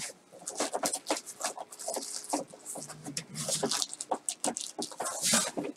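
Packaging being handled and unwrapped: a run of quick, irregular crinkles, crackles and rustles.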